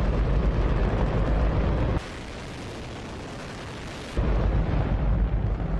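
Hydrogen-oxygen rocket engine on a static test firing: a loud, continuous rushing rumble. About two seconds in, the deep rumble drops away and the sound thins and quietens for about two seconds, then the full rumble returns.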